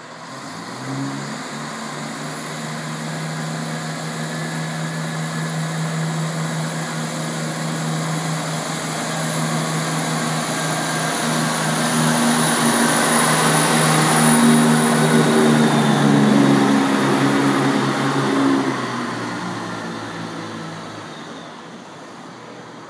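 Class 170 Turbostar diesel multiple unit pulling away from the platform: its underfloor diesel engines open up about a second in and run under power, growing louder as the train accelerates past, then fading as it moves off.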